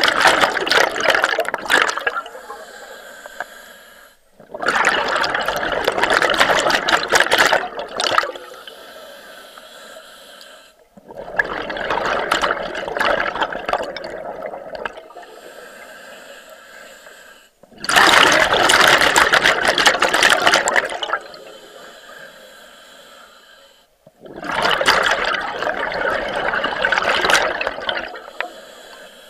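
Scuba diver breathing through a regulator underwater: five loud rushes of exhaled bubbles about six seconds apart, with a quieter hiss between them.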